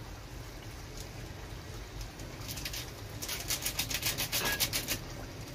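Plastic spice packet crinkling and crackling in a quick run of sharp clicks about halfway through, as garam masala is shaken out of it, over a steady low hum.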